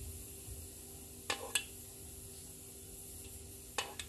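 Three light clicks of a plastic measuring spoon knocking as egg flan mixture is spooned into silicone cups, two close together and one near the end, over a faint steady hum.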